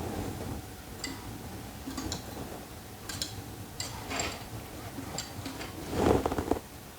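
Light metallic ticks and clicks, scattered irregularly, from small workshop tools being handled, with a duller knock about six seconds in.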